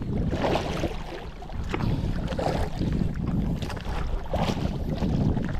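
Wind buffeting the microphone over a steady low rumble, with water splashing and slapping against a small boat's hull in irregular surges about once a second.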